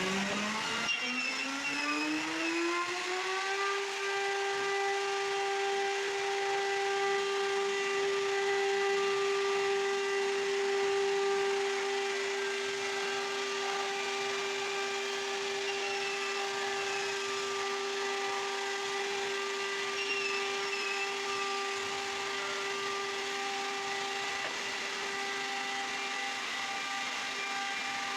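CNC router spindle spinning up with a rising whine over the first few seconds, then running at a steady high whine.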